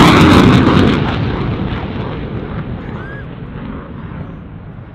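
Eurofighter Typhoon's twin EJ200 turbofans in afterburner, loudest and crackling at the start as the jet passes low, then fading steadily as it pulls away.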